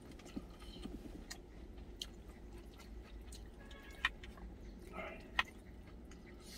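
A person chewing a mouthful of spicy stir-fried pork, with a few sharp clicks spread through the chewing.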